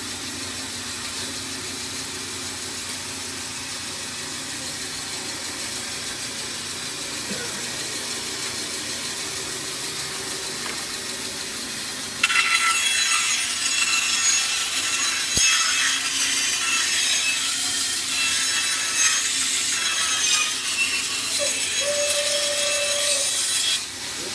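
Bandsaw running steadily with no load, then about halfway through the blade enters the stock and saws a strip for about twelve seconds, louder and hissier, with a single click along the way. The cut ends just before the saw is heard running freely again.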